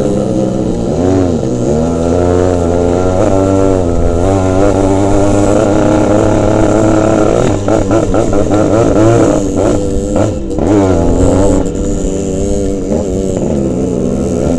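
Yamaha RX-series two-stroke single-cylinder motorcycle engine under way, its pitch rising and falling as the throttle is opened and closed on a rough dirt trail. There is a spell of clattering and rattling about eight to eleven seconds in.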